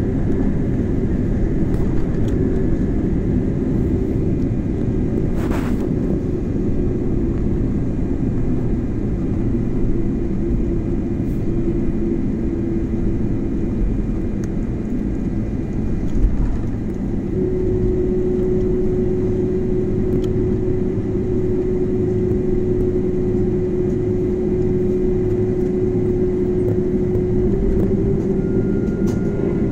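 Steady cabin noise of a jet airliner taxiing: its engines run at idle under a low rumble, with a steady hum that grows a little stronger about halfway through.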